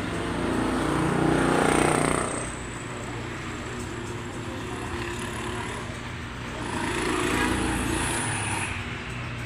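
Motor vehicle engines passing by, the engine noise swelling twice, about two seconds in and again about seven seconds in, over a steady low hum.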